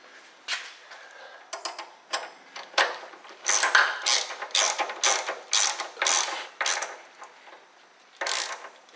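Ratchet wrench clicking in repeated strokes, about two a second, as a loose bolt on the 1964 Ford Thunderbird's steering is tightened; a few scattered clicks of the tool come before the steady run.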